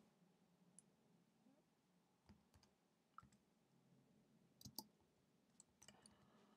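Faint computer keyboard clicks, single keys pressed slowly and irregularly as a name is typed, with near silence between them; the loudest pair of clicks comes a little under five seconds in.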